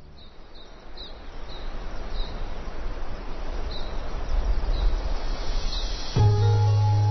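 Outdoor nature ambience: a rushing wind-like noise that builds steadily in loudness, with brief bird chirps over it. About six seconds in, music cuts in with a low held note and higher sustained tones.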